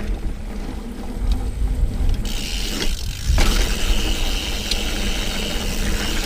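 Mountain bike riding over a trail: the rear hub's freewheel buzzes as a steady high ratcheting while the bike coasts, starting about two seconds in, over a continuous low rumble of tyres on the ground.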